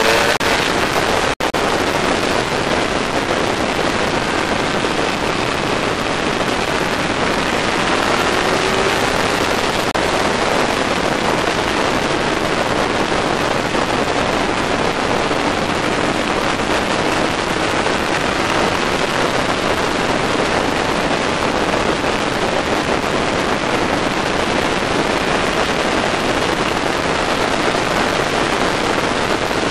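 Steady, loud wind rush on the microphone of a moving motorcycle at speed, with a faint engine note rising and falling beneath it. The sound drops out for an instant about a second and a half in.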